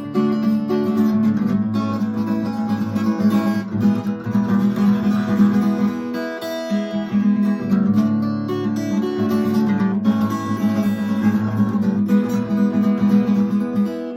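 Acoustic guitar strummed and picked in a steady instrumental break of a folk song.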